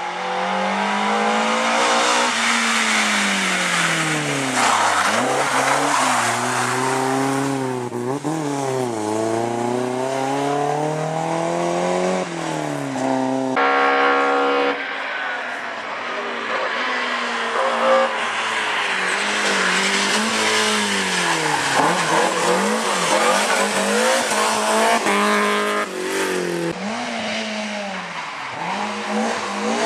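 BMW M3 rally car's engine at full throttle, heard from on board: it revs up and drops back again and again with the gear changes and braking, over tyre noise as the car slides through corners.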